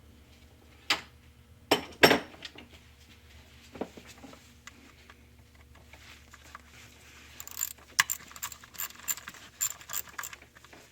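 A hand ratchet clicking as it tightens the small screw holding an engine sensor, in a quick run of clicks near the end, with a few sharp metal clinks of tool handling in the first seconds.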